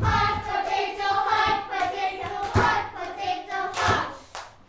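A group of young children singing a song together, with a few sharp hand claps; the singing stops near the end.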